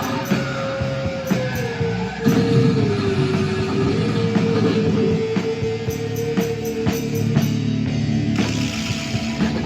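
Rock music with guitar. A long held lead note dips in pitch and comes back, then stops about three-quarters of the way through, with the band carrying on underneath.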